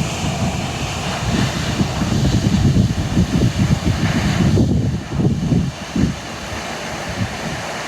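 Wind buffeting the microphone in gusts over the steady rush of the Lower Düden waterfall plunging into the sea. The gusts ease about six seconds in.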